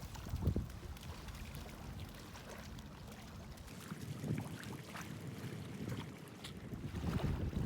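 Outdoor lakeside ambience: a low rumble of wind on the microphone that swells near the end, with faint small water sounds and light ticks.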